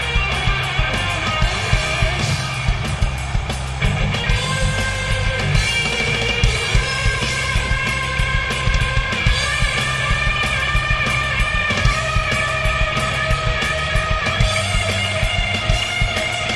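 Heavy metal band playing live: distorted electric guitar lead lines holding long notes over bass guitar and a steady drum beat.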